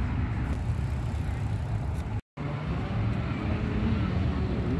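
Outdoor ambience: a steady low rumble with faint distant voices, broken by a brief dropout to silence about two seconds in.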